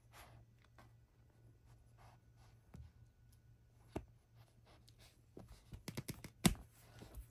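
Faint scattered scratching and tapping, with a sharp tick about four seconds in and a quick run of clicks and scratches near the end, the loudest a single sharp tap.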